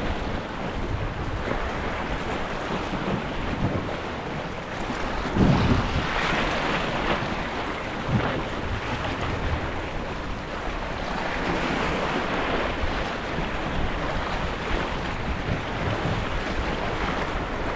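Ocean swell surging and breaking against coastal rocks, with wind buffeting the microphone. The wash swells louder about five seconds in and again around eleven seconds.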